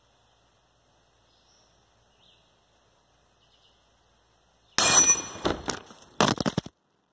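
A sudden loud metallic clang with a ringing tone about five seconds in, followed by a few rattling knocks that cut off abruptly; before it, faint outdoor quiet with a couple of faint high chirps.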